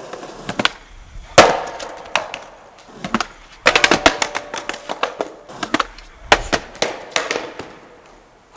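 Skateboard slamming and clattering on concrete during an ollie down a nine-stair set: a loud sharp crack about a second and a half in, a rapid flurry of clacks around four seconds in, and scattered smacks after.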